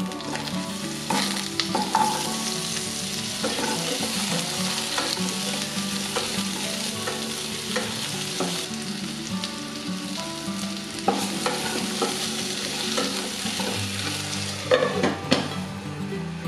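Potato pieces sizzling as they fry in hot oil in a nonstick pan, being stirred and turned with a wooden spatula. A few sharp knocks of utensil on pan break through the sizzle, the loudest cluster near the end.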